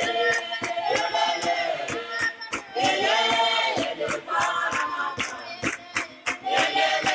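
Music: a chorus of voices singing repeated rising-and-falling phrases over a steady clicking beat.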